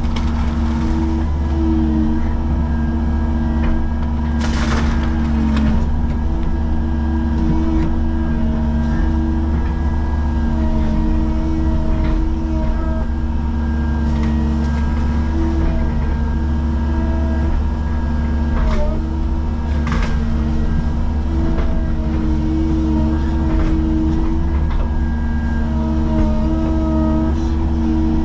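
Caterpillar excavator's diesel engine running steadily under working load, heard from inside the cab, with a hydraulic whine that wavers in pitch as the boom and bucket move. A few sharp clanks sound as the bucket works the hard, rocky bank, one about five seconds in and two close together near two-thirds of the way through.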